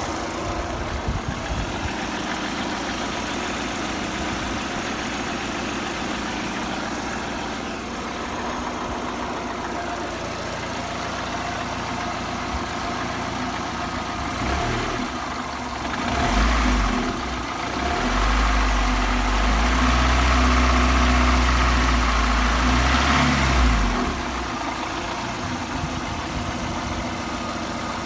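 VAZ-21124 1.6-litre 16-valve four-cylinder engine idling, blipped about halfway through, then held at raised revs for several seconds before dropping back to idle. The owner hears a knock in it that he cannot trace, and it sounds the same cold and hot.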